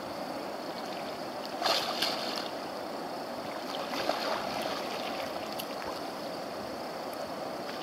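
Water splashing as a large wels catfish thrashes at the surface right beside a wading angler while it is brought in to be landed by hand: a couple of sharp splashes about two seconds in and more around four seconds, over a steady rush of water.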